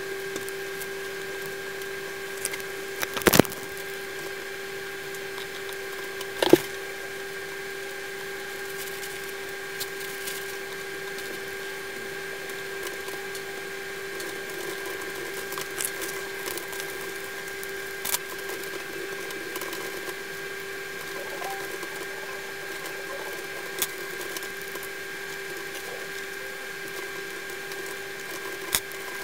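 A steady electrical hum with a few scattered small clicks and taps as parts are handled with tweezers on a workbench. The two loudest clicks come about three and six and a half seconds in.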